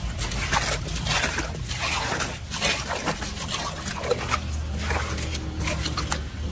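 A small hand rake splashing and scraping through muddy drain water and debris in quick irregular strokes. A steady low rumble grows louder in the second half.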